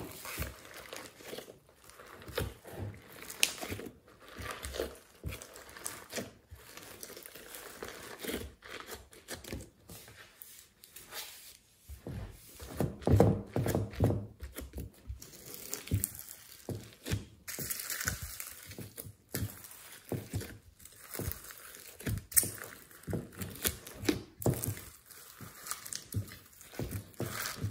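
Hands kneading and stretching glossy slime mixed with foam beads and modelling clay in a glass dish: irregular squishing and crackling, loudest about 13 seconds in.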